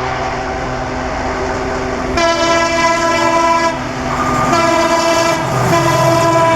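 EMD WDP-4B diesel locomotive running hard in high notch, its 16-cylinder two-stroke engine loud and steady. From about two seconds in, its multi-tone air horn sounds three blasts: the first about a second and a half long, the second shorter, and the third long, with its pitch dropping slightly near the end as the locomotive passes.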